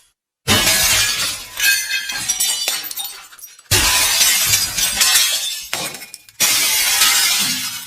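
Glass shattering three times, a few seconds apart: each a sudden crash followed by shards tinkling and settling as it dies away.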